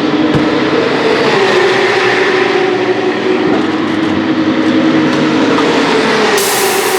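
Racing cars' engines running at speed around the circuit, loud and steady, their pitch drifting gently up and down. A short low knock comes just after the start, and a bright hiss comes in suddenly near the end.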